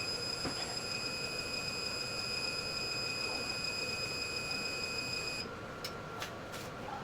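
Steady electronic whine from a piece of equipment: several high pitched tones over a hiss, cutting off abruptly about five and a half seconds in. A few faint clicks follow.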